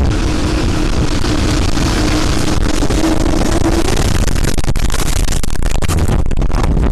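Tornado-force wind buffeting the microphone: a loud, continuous rushing noise with a deep rumble. A faint steady hum sits under it until about halfway, and the noise turns choppy near the end.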